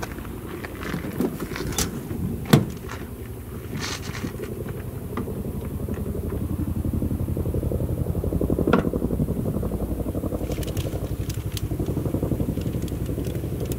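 An engine throbbing in a rapid, even pulse, growing louder over the first half and then holding steady, with a few sharp clicks and knocks in the first three seconds.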